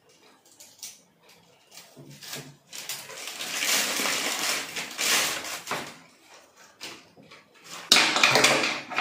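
Crinkling of a clear plastic bag as a water heater's power cord and plug are unwrapped by hand. It comes in two spells, a longer one in the middle and a short, louder one near the end, with small handling clicks before them.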